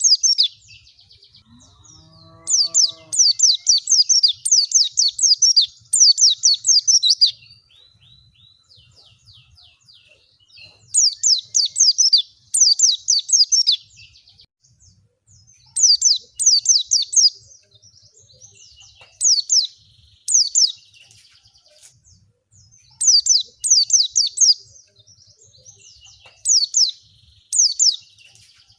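White-eye (pleci) song: phrases of rapid, high, down-slurred chirping notes, each phrase lasting one to several seconds and repeating after pauses of a few seconds.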